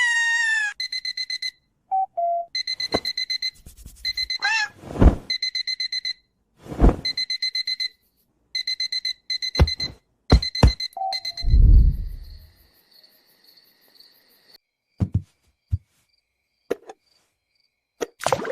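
Electronic alarm clock beeping in rapid bursts of high beeps, about ten a second, that stop and start again and again. Thumps and sliding, cartoon-like sound effects break in, with a low rumble about twelve seconds in, after which the beeping goes on fainter and then stops, leaving a few scattered knocks.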